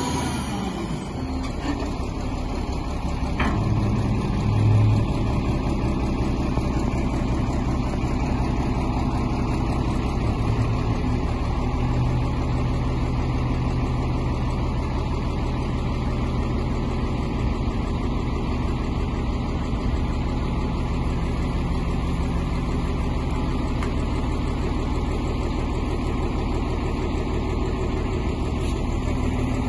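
Caterpillar D250E Series II articulated dump truck's diesel engine running steadily while the hydraulic hoist raises the dump body. There is a single brief click about three seconds in.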